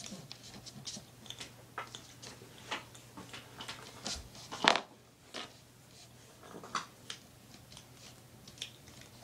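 Soft scattered taps, clicks and rustles of handling, with one sharper knock about five seconds in, over a faint low hum.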